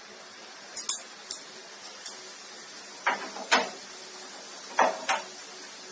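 Metal tools and parts being handled: about six sharp clinks and knocks over a faint steady hiss, the loudest in the second half.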